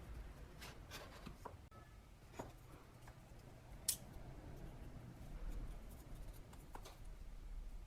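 Quiet small handling sounds: a few faint clicks and taps, with one sharper click about four seconds in, over a low hum.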